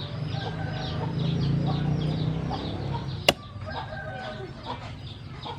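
Chickens clucking in rapid short calls over a steady low hum, with a single sharp knock about three seconds in.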